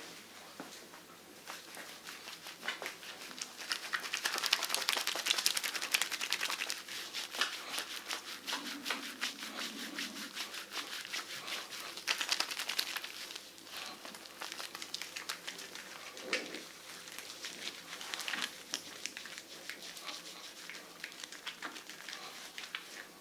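Hands massaging a foot with a wet, juicy crackling and squishing of slick skin. It comes in stretches and is loudest about five seconds in and again around twelve seconds.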